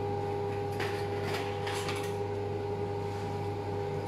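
Steady electrical hum of kitchen machinery in a small room, with several fixed tones. Brief rustling and handling noise comes about one to two seconds in.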